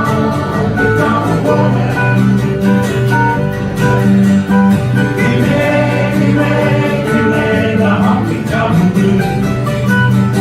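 Live acoustic country-style band music led by guitars, playing steadily without sung words.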